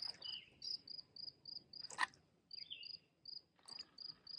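A cricket chirping steadily, faint, with short high chirps repeating about three times a second. A sharp click sounds about two seconds in and a softer one later.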